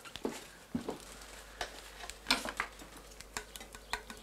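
Kitchen utensils clinking and scraping against the pan of a freshly cooked roast: an irregular run of small clicks and knocks, the sharpest a little past two seconds in.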